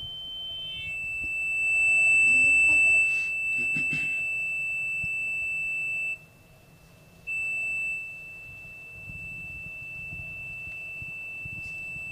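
Steady high-pitched whistle of audio feedback from the hall's microphone system, a single unchanging tone that cuts out for about a second midway and then comes back.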